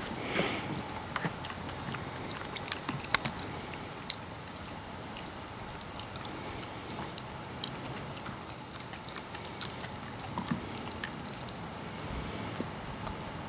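Siberian husky licking and nibbling at scraps of cow bone, its teeth and tongue making scattered small clicks and crunches.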